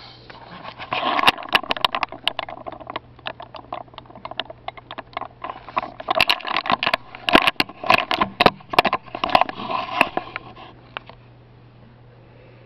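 Computer mouse scroll wheel clicking in rapid runs as a web page is scrolled. The runs come in several bunches and stop about a second before the end, over a steady low hum.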